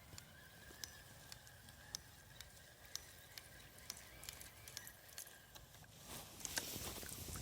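Faint outdoor quiet with scattered small clicks and a thin steady whine, then rustling that starts about six seconds in and grows louder, like someone moving through vegetation.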